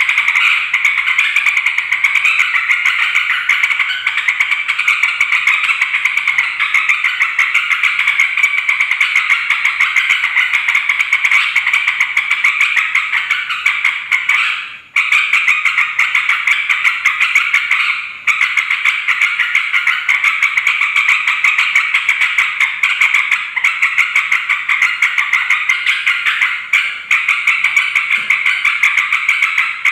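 Yellow-vented bulbuls (trucukan) chattering and calling in a noisy, unbroken stream of fast notes, with brief breaks about 15 and 18 seconds in.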